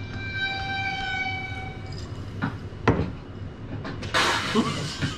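A horn sounding one steady held note for about two seconds, followed by a sharp knock and, near the end, a short loud burst of hiss.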